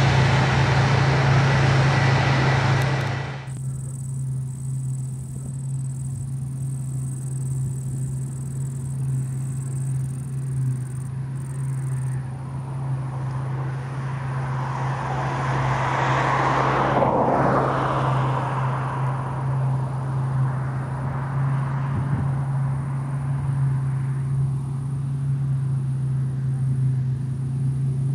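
A New Holland combine harvester running as it cuts wheat: a steady low engine drone under the rushing of the threshing machinery. It is louder and fuller for about the first three seconds, then drops to a quieter level. A rushing noise swells and fades about halfway through.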